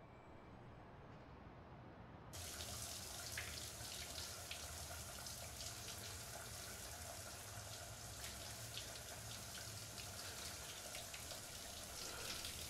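A quiet low hum, then about two seconds in a shower comes in abruptly: water spraying steadily, with scattered small splashes and drips.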